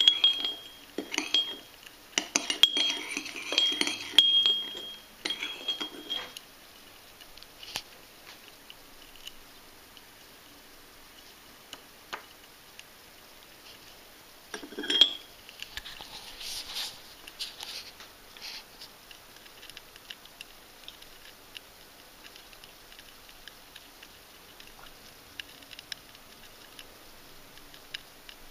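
Light clicks, taps and scrapes of handling noise in two bursts, one at the start lasting several seconds and a shorter one about halfway, with a brief high ring on some of the clicks; faint room background in between.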